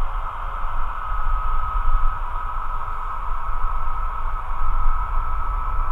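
Airbus A320neo's Pratt & Whitney PW1100G geared turbofans running at low taxi power: a steady high whine over a low rumble, the whine beginning to rise slightly near the end.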